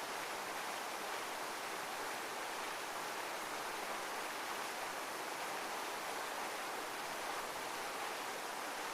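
Heavy waterfall: a steady, unchanging rush of water, with no swells or breaks.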